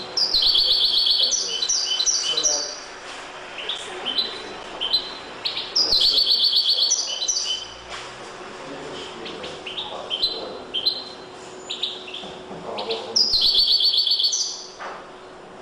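A caged European goldfinch cock bird, trained to sing the limpio song style, singing. Three loud runs of fast, high trills come about a second in, about six seconds in and near the end, with shorter chirped notes between them.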